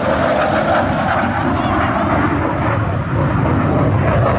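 Eurofighter Typhoon's twin EJ200 turbofan engines in a fast low pass at about 600 knots, out of reheat: a loud, steady jet roar.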